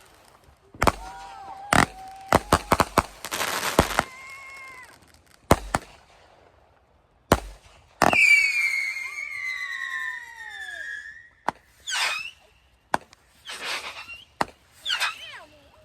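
Consumer fireworks going off: a string of sharp bangs and crackles, then a long whistle that falls in pitch from about eight seconds in, followed by short whistling shots.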